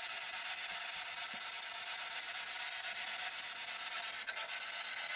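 Steady hiss of radio static from a spirit box scanning FM radio stations, with no voice breaking through.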